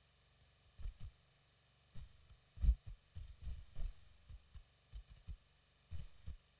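Soft, irregular low thumps, many in quick pairs, with the strongest one a little before the middle, over a faint steady hiss.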